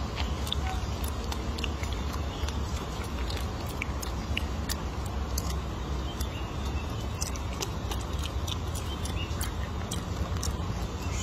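A macaque chewing and picking at crumbly hard-boiled egg close to the microphone: scattered small irregular clicks over a steady low rumble.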